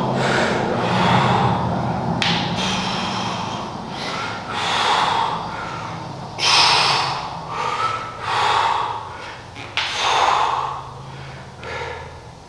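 A man breathing hard during a weightlifting set: a series of forceful exhales about a second or so apart, a sign of straining through the reps. A steady low hum runs underneath.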